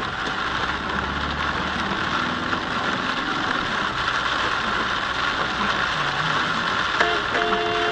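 Rain and tyre hiss on a wet road heard from inside a moving car, a steady noise with the engine running low underneath. About seven seconds in, a steady held tone of several pitches starts and keeps sounding.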